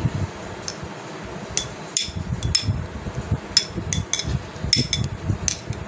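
Metal spoon clinking and scraping against a small glass cup as set mango jelly is spooned into it: about nine light, irregular clinks over soft dull bumps.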